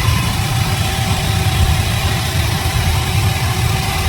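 An engine running steadily at idle, a continuous low rumble with no change in speed.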